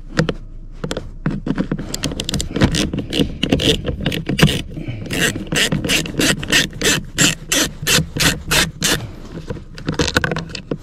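Socket wrench with a long extension backing out the 7/32 screws that hold a blower motor resistor under a truck's dash. It makes sharp clicks and scraping, and from about the middle on the clicks come in a fast even run of about three a second.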